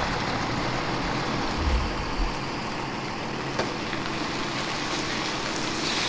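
Semi tractor's diesel engine running as it slowly tows a cabin cruiser on a triple-axle trailer up off a launch ramp, a low rumble that is strongest in the first two seconds, under a steady rushing noise.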